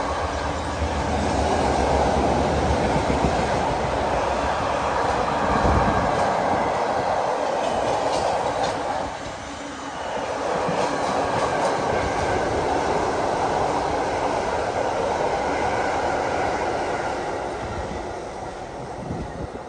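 Freight train of empty container flat wagons running past at speed: a loud, steady rush of wheel-on-rail noise that dips briefly about halfway and fades near the end.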